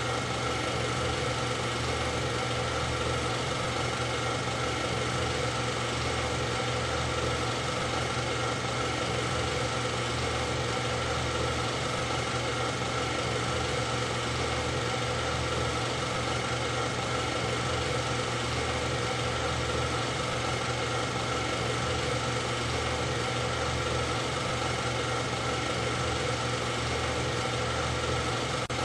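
A steady mechanical drone, like a motor running at idle, that holds one unchanging pitch and level throughout with no revving.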